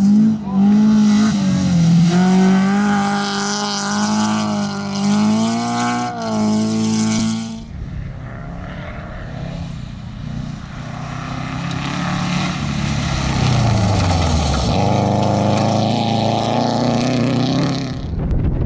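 Rally cars' engines at high revs on a dirt stage, heard in separate cuts. A held, wavering engine note comes first; after a cut about seven seconds in, another car's engine note falls and then rises again.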